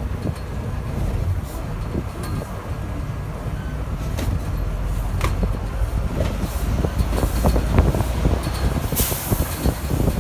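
Heavy vehicles rumbling, with many short knocks and clatters that thicken in the second half, and a burst of hiss about nine seconds in.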